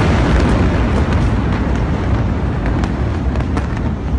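Loud, sustained rumble from the blast of the 2015 Tianjin port chemical warehouse explosion, continuing just after the blast wave hits and slowly fading, with scattered sharp ticks through it.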